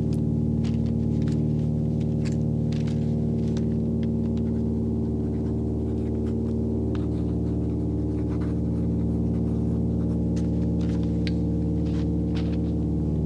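Steady, unbroken drone of a propeller aircraft's engines heard from inside the cabin, with scattered clicks and crackle over it.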